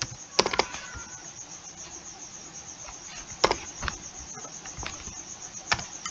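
Computer keyboard keys tapped now and then, a handful of separate clicks spread over several seconds, over a steady background hiss.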